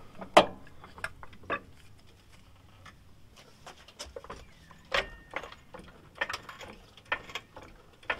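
Scattered sharp metallic clicks and clinks of hand tools working on the front CV axle and suspension bolts, irregular rather than rhythmic, the loudest about half a second in.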